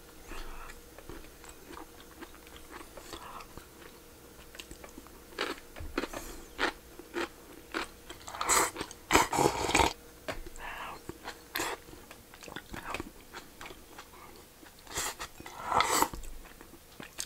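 Close-up eating sounds: a man chewing mouthfuls of rice and soft simmered daikon and mackerel, with scattered light clicks of chopsticks against ceramic bowls.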